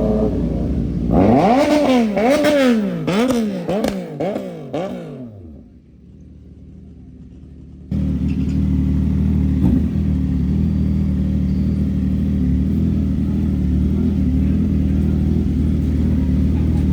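CFMoto 675SR-R three-cylinder engine breathing through an Austin Racing full exhaust system. It is revved up and down in about six quick blips, then fades. From about eight seconds it settles into a steady idle.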